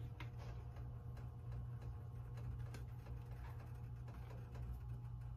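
Steady low electrical hum with a few faint, irregular clicks.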